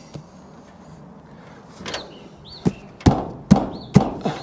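Sharp knocks on timber boarding as it is fixed up under the eaves: a quick run of about five in under two seconds, in the second half.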